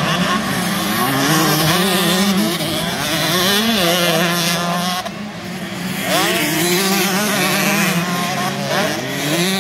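Several 125 cc motocross bikes running hard on a dirt track, their engines revving up and down as the riders work the throttle over the jumps. Overlapping engines are heard, with a brief lull a little after the midpoint and then a sharp rev rising.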